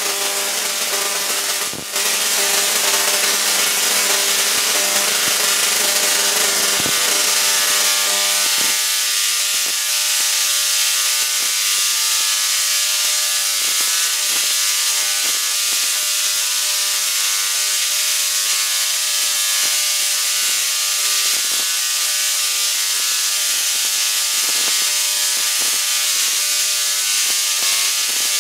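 BM7 spark-gap Tesla coil firing streamers from its spun toroid, driven by a synchronous rotary spark gap at 200 breaks per second: a loud, steady, buzzing crackle of sparks pitched at the gap's 200 breaks per second, with a brief drop about two seconds in.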